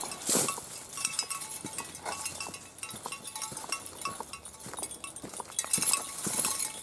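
Footsteps crunching irregularly on frozen ground, with the light metallic jingle of dog collar tags.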